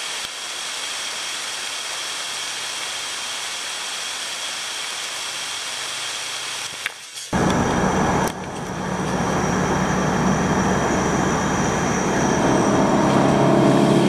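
Steady hiss of rain falling for about seven seconds, then, after an abrupt cut, a louder car driving on the road with tyre, wind and engine noise through an open window.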